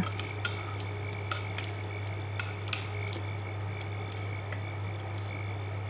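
Wooden chopsticks stirring sliced purple sweet potato in sugared liquid in a saucepan, with scattered soft clicks against the pan over a steady low hum.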